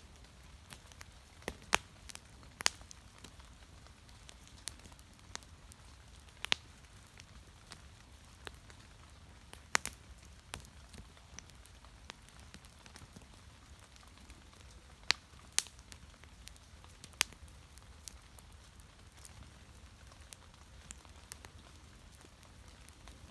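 Wood fire crackling: sharp, scattered pops and snaps at irregular intervals, a handful of them much louder than the rest, over a faint steady low background.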